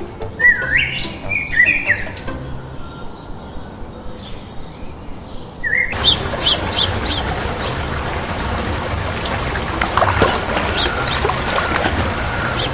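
Short, high, whistled animal chirps. There is a cluster of rising and falling whistles in the first two seconds. After an abrupt change to a hissier background near six seconds, more quick, high chirps follow, with a few scattered calls after that.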